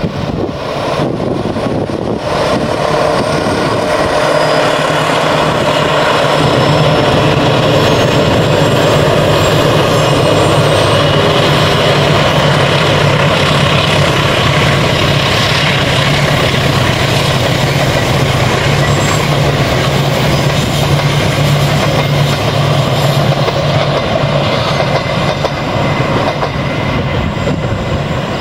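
Parcel train hauled by two diesel locomotives passing: a steady low engine drone over the rumble of wheels on the rails, growing louder over the first few seconds and staying loud as the vans go by.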